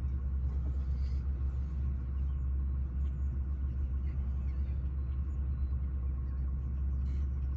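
Steady low engine rumble with no change in pitch or level.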